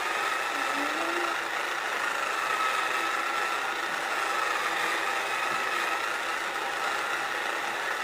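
Small electric motor of a mini pottery wheel running steadily while clay is shaped on it, a steady whine that wavers slightly in pitch.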